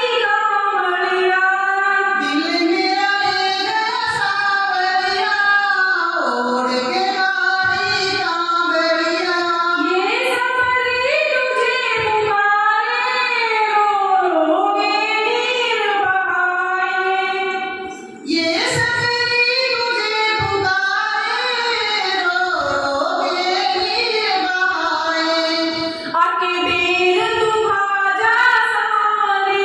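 A woman singing a Hindi devotional bhajan to Krishna into a handheld microphone, in gliding, held notes. There is a short break for breath a little past halfway.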